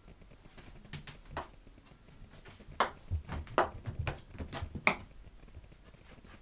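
Ping pong ball knocked about by a cat: a rapid run of light clicks and taps as the ball bounces and hits things, with sharper knocks about three and five seconds in and a few dull thumps in between.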